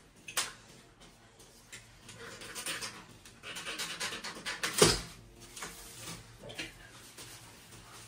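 Rustling and clicking from a new mountain bike and its packing material being handled, with a sharper knock about five seconds in.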